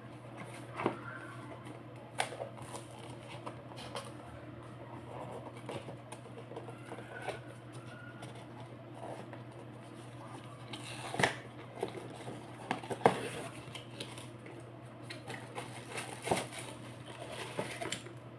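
A bicycle handlebar phone holder and its packaging being handled: scattered plastic clicks, taps and rustling, with a few sharper knocks past the middle, over a steady low hum.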